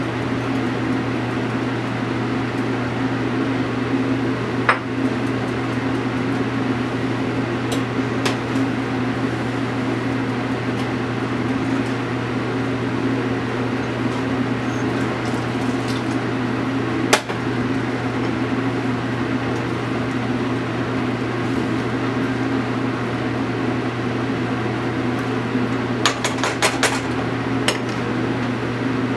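A steady electric hum from a kitchen appliance's motor or fan, with a few sharp clinks of utensils against pots or dishes: one about five seconds in, a louder one about seventeen seconds in, and a quick cluster near the end.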